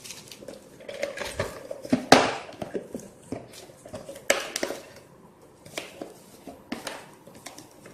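Small screws and other small hardware clicking and clattering as they are handled, with sharper knocks about two and four seconds in.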